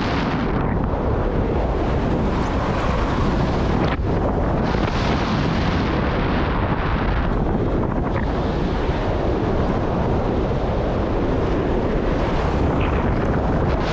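Strong wind rushing and buffeting over the microphone in flight under a speedflying wing: a loud steady rush with a heavy low rumble, its hiss easing and swelling again every few seconds.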